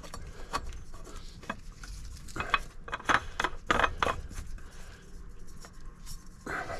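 New spin-on oil filter being screwed on by hand onto a Universal M-25XP marine diesel engine: scattered light clicks and rubbing, busiest in the middle.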